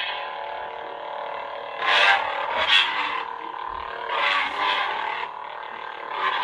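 Adawlert replica lightsaber's sound board humming steadily, with four or five rising-and-falling swing swooshes as the saber is moved, triggered by its motion sensor.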